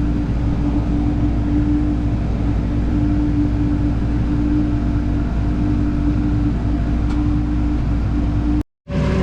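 Farm tractor engine running steadily, a constant drone with a steady hum over it. Near the end it cuts out abruptly for a moment, and a different-sounding engine follows.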